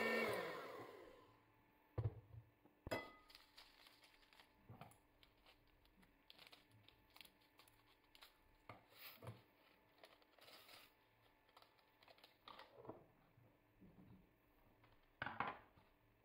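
Electric hand mixer running down and stopping about a second in. Then faint, scattered handling sounds: a plastic packet crinkling and being cut with scissors, and light knocks and clinks of a glass dish on the counter.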